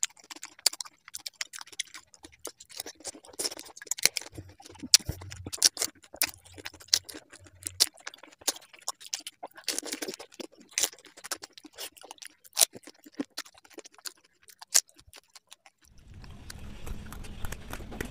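Close-miked eating: crisp crunches and chewing of raw green chillies and panipuri shells, a rapid run of sharp crackling clicks. Near the end the crunching stops and a steady hiss with a low hum takes over.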